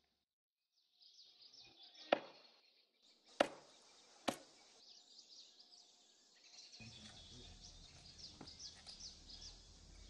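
A wooden mallet striking kudzu root in a stone mortar, three sharp thuds about two, three and a half and four seconds in, crushing the root to release its starch. Small birds chirp throughout.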